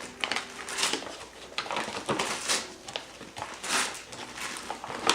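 Wrapping paper crinkling and tearing as a present is unwrapped, in a series of irregular rustles and rips.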